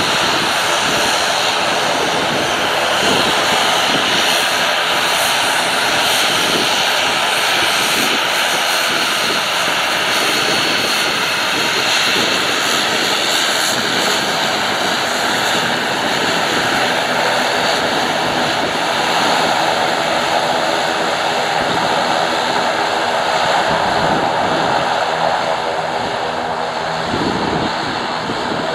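ATR 72 twin-turboprop's engines and propellers running at taxi power as it rolls past: a steady drone with a high whine.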